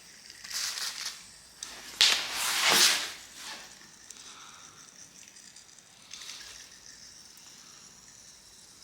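WD-40 aerosol spraying onto a dirty bicycle chain in several short hissing bursts, the longest about a second long starting about two seconds in.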